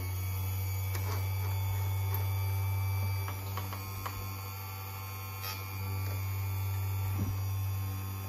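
Chicago Electric electric chainsaw chain sharpener's motor running with a steady hum, its grinding wheel spinning free between teeth. A few light clicks come as the chain is moved and set for the next tooth.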